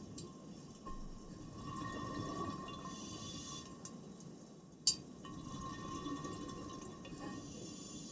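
Underwater ambience on a scuba dive: hissing bubble bursts from divers' regulator exhausts about every four seconds, over a low rumble and a steady faint whine. One sharp click about five seconds in.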